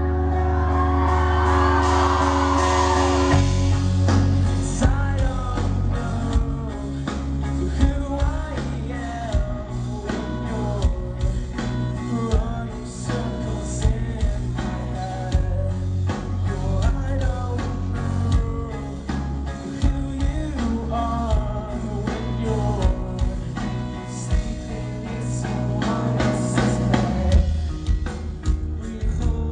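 Live rock band performing with guitars, bass, drums and singing. A held chord rings for the first few seconds, then the full band comes in with a steady drum beat.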